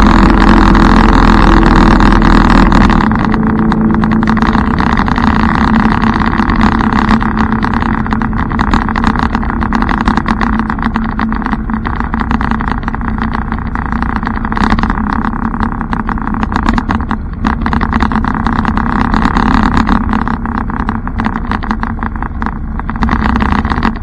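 A motorcycle's engine running at a steady cruising speed, with wind buffeting the microphone. It gets a little quieter about three seconds in.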